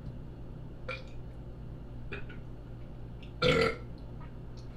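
A person burps once, a short loud belch about three and a half seconds in.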